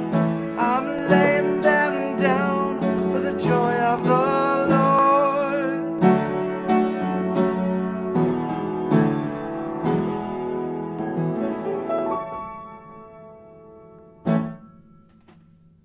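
A man singing the end of a song over piano-style keyboard chords; about six seconds in the voice stops and the keyboard plays on alone, its final chord ringing out and fading away. A short knock sounds near the end.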